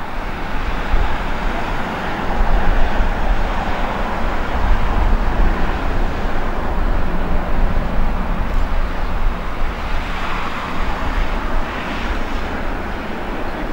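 Boeing 747-400 on final approach, its four jet engines making a steady rumbling noise that swells slightly as it draws nearer.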